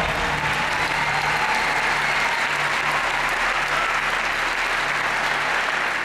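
Audience clapping and applauding steadily in a large hall, with faint music underneath.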